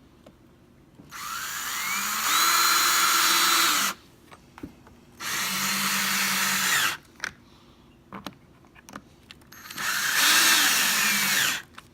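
Power drill driving screws in three runs, each spinning up to a steady whine and then stopping; the first run is about three seconds long and the other two shorter, with a few light clicks in between.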